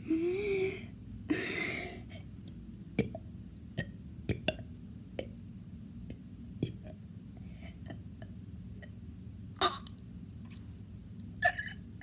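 A person trying to burp: a short, low, voiced burp-like sound at the start and a breathy exhale, then scattered small mouth clicks and gulps, with two louder short throat sounds near the end.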